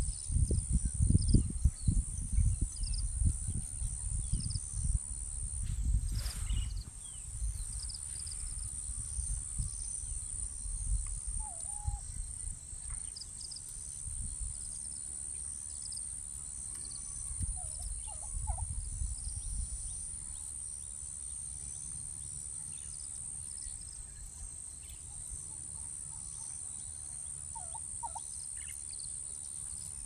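Steady high-pitched insect drone with scattered short bird chirps and calls. A loud low rumble fills the first several seconds and then dies down.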